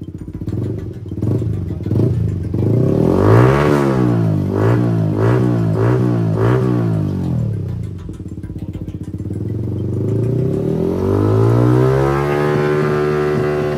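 Yamaha MT-15's 155 cc single-cylinder engine revved through an aftermarket carbon-fibre slip-on silencer held onto the header pipe by hand for a sound test. It rises in one rev about three seconds in, then gives a string of four or five quick throttle blips, settles back to idle, and near the end makes a long rev up and back down.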